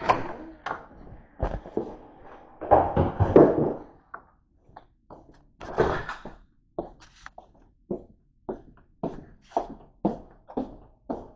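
Close handling and rustling noises against the microphone, then footsteps walking steadily on a hard floor, about two steps a second, from about seven seconds in.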